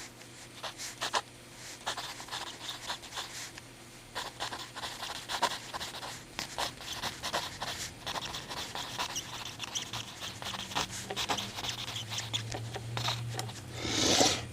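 A mechanical pencil scratching across paper in many short strokes, with small clicks and handling noise, and a louder rush of breath through the nose near the end.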